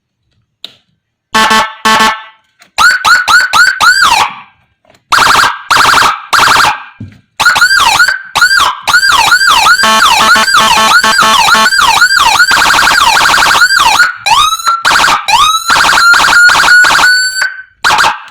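Whelen G2-style siren module sounding through a 12-watt TOA horn speaker, stepping through its tones: a few short horn blasts, rising and falling wails, a long fast yelp, then short chirps and a tone that climbs and holds near the end.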